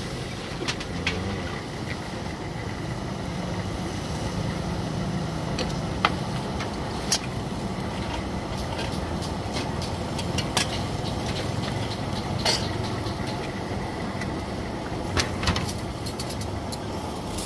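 A steady low rumble like an idling engine, with scattered sharp metallic clinks as aluminium pot lids and pans are handled on the stoves.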